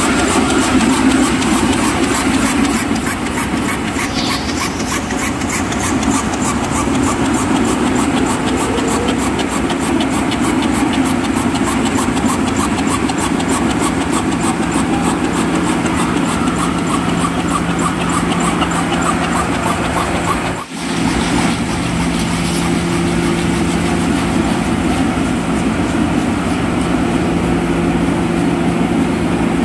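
Match-splint cutting machine running, chopping wood veneer into matchsticks with a fast, even clatter. About two-thirds of the way through the sound drops out briefly, then gives way to a steadier factory machine hum with a low steady tone.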